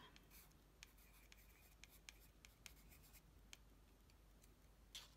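Faint scratching of a pencil on watercolour card as a word is handwritten, in short light strokes with small ticks.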